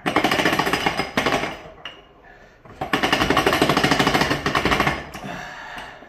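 Rapid metallic rattling as the crankshaft of a Mercury inline-six outboard is turned by hand in its bearing carriers on the block. It comes in two bursts of about two seconds each, with a short pause between.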